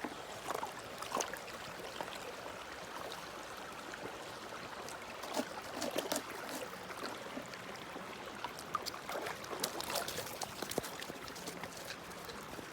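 Water trickling and gurgling, with many small irregular clicks and splashes.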